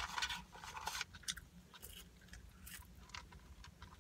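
A person chewing french fries close to the microphone, with wet mouth clicks and smacks. The chewing is busiest in the first second, then thins to sparse small clicks.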